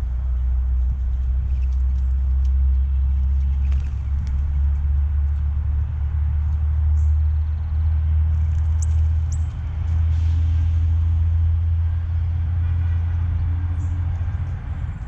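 Steady low rumble that sets in at the start and eases off near the end, with a few faint, short, high bird chirps over it.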